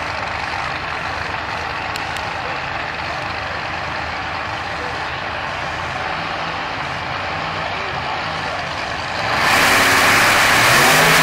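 x275 drag cars idling at the starting line, a steady low engine rumble. About nine seconds in they launch at full throttle: the engine noise jumps suddenly much louder and the pitch climbs as they accelerate.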